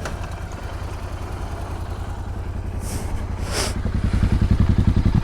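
Motorcycle engine running under way, a steady low pulsing that grows louder from about four seconds in. A brief hiss about three seconds in.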